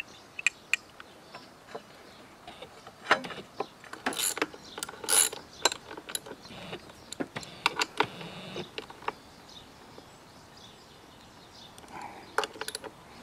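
Socket ratchet clicking and steel hand tools clinking on a motorcycle's front brake caliper as its bolts are worked, in scattered bursts of sharp clicks.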